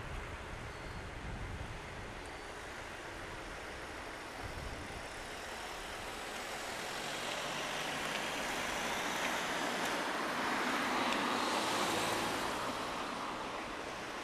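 Steady outdoor street hum, with a passing vehicle whose noise swells over several seconds, is loudest about eleven seconds in, and fades near the end.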